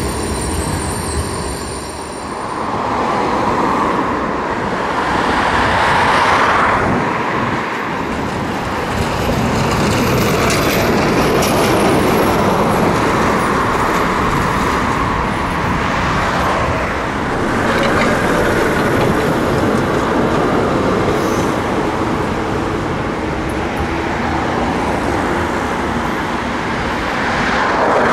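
Trams running on street track, with wheel-on-rail running noise and the road traffic alongside mixing into a steady din that swells as vehicles pass.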